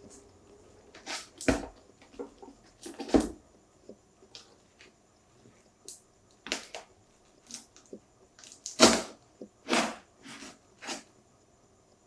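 Handling sounds of a phone case and its packaging being unboxed: irregular knocks, clicks and short rustles. The loudest come about a second and a half in, about three seconds in, and near nine seconds.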